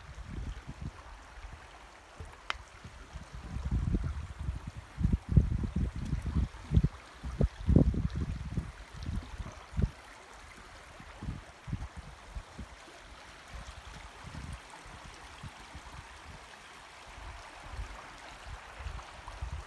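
Shallow creek flowing over a rocky bed, a steady rushing babble, with irregular low thumps and rumbles that are strongest from about four to ten seconds in.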